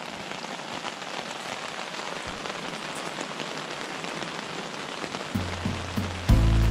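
Steady rain falling on a tent's fabric. Low notes of background music come in about five seconds in and grow loud just before the end.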